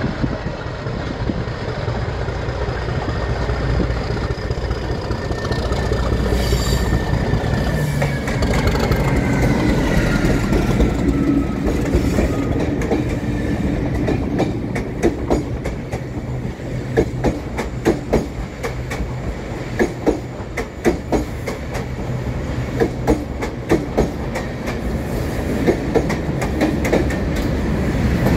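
Class 37 diesel locomotive passing with its English Electric V12 engine running, a high whistling tone falling in pitch as it goes by. From about halfway, the hauled Class 197 units roll past with a clickety-clack of wheels over rail joints.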